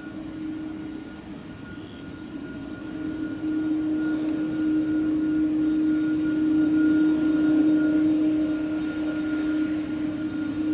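Airbus A300-600 freighter's turbofan jet engines running at taxi power as the aircraft rolls past, a steady whining hum that grows louder from about two seconds in, peaks past the middle and eases slightly near the end.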